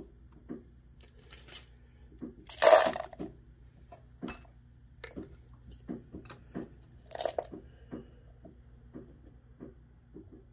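Milled charcoal being shaken through a small wire-mesh strainer onto paper: scratchy, crunching bursts, the loudest about three seconds in and another near seven seconds. Light clicks and ticks of handling come between.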